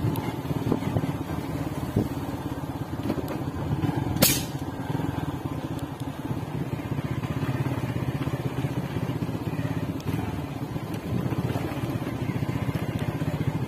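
Motor vehicle engine running steadily as it drives along an unpaved dirt road, with a few small knocks and one sharp click about four seconds in.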